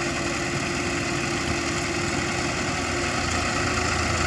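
Diesel engines of two Ford tractors (a 3610 and a 4610) running steadily under load, hitched in tandem to drag a heavily loaded sugarcane trolley out of mud.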